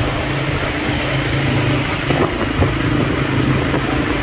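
Motor vehicle engine running at a steady speed, a constant low hum, with a couple of brief knocks about two seconds in.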